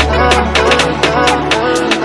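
Background pop music with a steady beat and a bass line.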